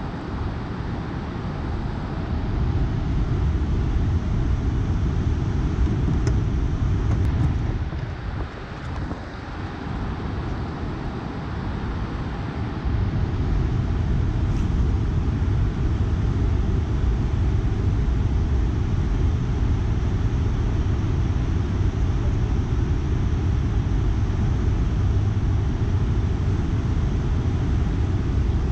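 Steady low rumble of wind and rushing water from a dam's open spillway gates, easing briefly about eight seconds in.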